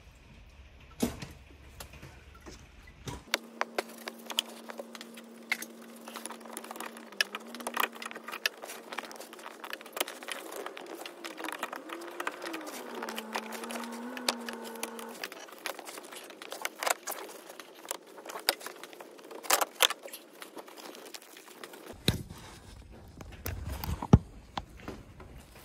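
Pliers working a spring hose clamp on the thermostat housing hose: irregular sharp metal clicks and clinks of the tool against the clamp, some louder than others.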